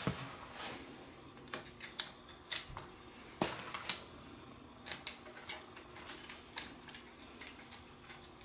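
Scattered light clicks and taps of plastic parts and hand tools being handled as motorcycle fairing pieces are fitted back together, with a few sharper knocks among them.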